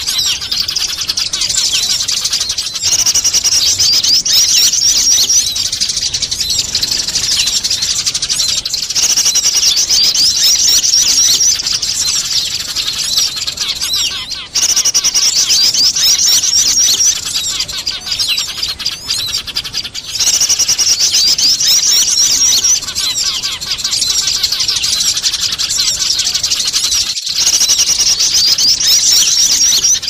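Bird-lure recording of many small birds calling together, led by the chattering of fighting Eurasian tree sparrows: dense, rapid chirps in loud flurries that swell and ease every few seconds.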